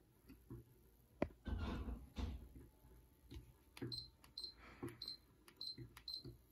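A sharp click, a short rustle of handling, then a run of five short high-pitched electronic beeps about half a second apart, several with a soft thump.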